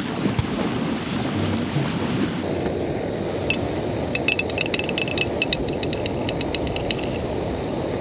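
Light metallic clinking, many quick ringing clicks starting about two and a half seconds in, over a steady rumbling noise.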